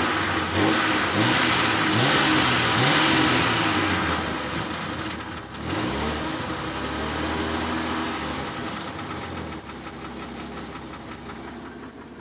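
Car exhaust and engine running unevenly at idle during water decarbonizing, misfiring a little: the engine speed wavers up and down, with a few sharp pops in the first three seconds. It gets quieter near the end.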